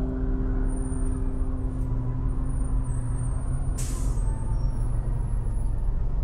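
Road traffic rumbling steadily, with a brief sharp hiss about four seconds in.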